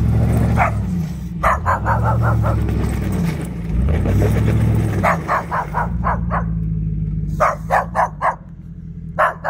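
A dog barking in quick runs of four to six barks, over the running engine of a plow-equipped SUV whose pitch rises and falls as it works back and forth.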